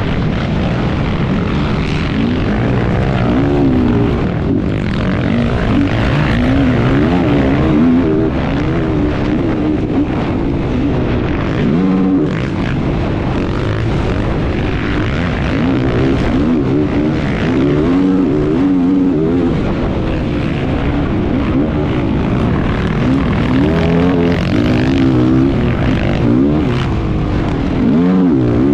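A competition engine revving hard, its pitch rising and falling quickly as it is worked up and down, over a continuous rush of noise.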